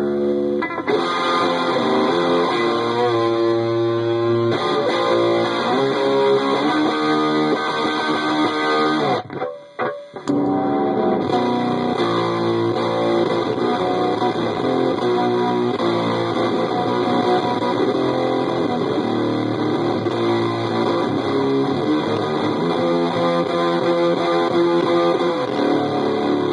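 Electric guitar played through a high-gain amp channel with the fuzz pedal switched off, giving heavily distorted chords and notes. The playing breaks off briefly about nine seconds in, then carries on.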